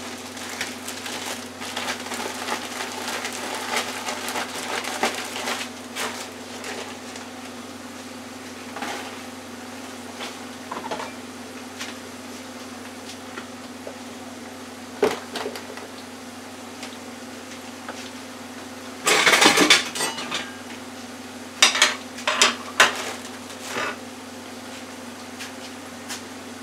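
A zip-top plastic bag of shrimp in a dry cornmeal and tempura coating being shaken, a dense rustling for the first several seconds. Later come scattered clinks and clatter of kitchen utensils, with a louder noisy burst of about a second two-thirds of the way through, over a steady low hum.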